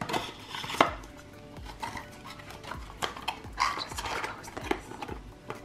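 A cardboard tarot tuck box and a paper booklet being handled: irregular rustling with light taps and clicks as the booklet goes back into the box.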